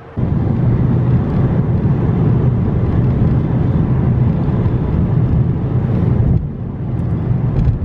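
Road and engine noise heard inside a car's cabin at highway speed: a steady low rumble that eases a little about six and a half seconds in.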